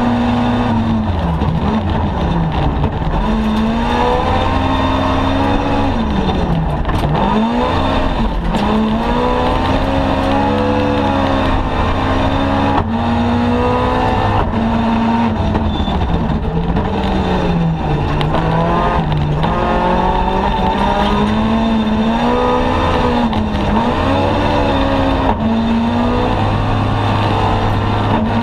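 Toyota AE86 rally car's engine at full racing effort, heard from inside the cabin: the revs climb again and again and drop away at gear changes and lifts, over a steady rumble of tyres on gravel.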